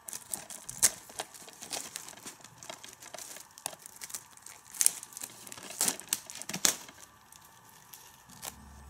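Clear plastic shrink-wrap being torn open and peeled off a DVD case, crinkling with irregular sharp crackles; the loudest come about a second in and again several times between about five and seven seconds in.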